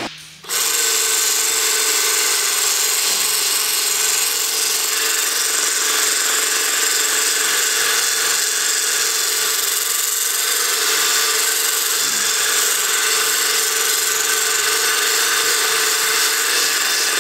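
Handheld power drill running at one steady speed while held down on the top deck of a Caterpillar diesel engine block. It starts about half a second in and runs without a break.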